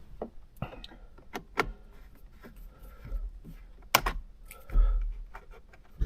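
Scattered light clicks and taps of a tool and hands working at a steering wheel airbag module, trying to hook and wiggle it free of its clips, with a sharper click about four seconds in and a dull bump just before five seconds.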